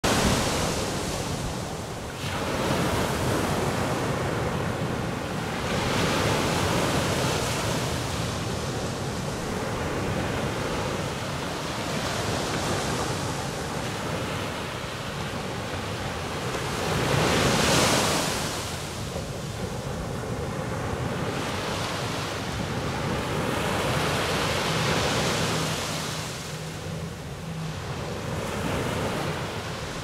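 Ocean surf: waves breaking and washing up the beach in a continuous rush that swells and eases every few seconds, with the loudest wave breaking a little past the middle.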